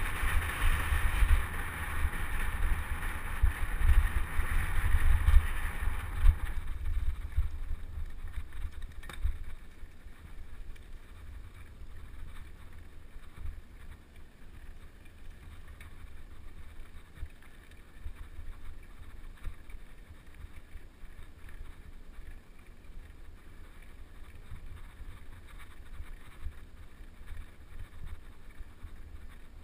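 Wind rushing over the microphone of a camera on a moving mountain bike, a rumbling hiss. It is loud for about the first six seconds, then drops to a much quieter steady rush.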